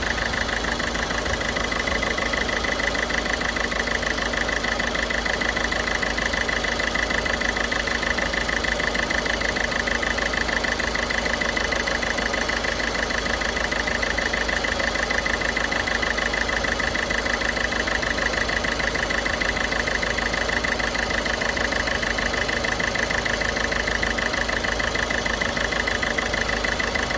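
Ford Figo turbodiesel engine idling steadily, with a constant high whine over the idle.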